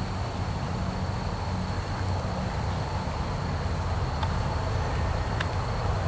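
A steady low rumble under a thin, high, unbroken insect trill held on one pitch, with a couple of faint clicks.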